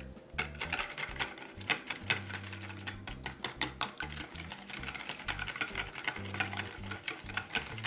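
Metal wire whisk beating an egg-and-cream batter in a plastic bowl. The wires tap and scrape against the bowl in quick, irregular clicks as they stir through the liquid.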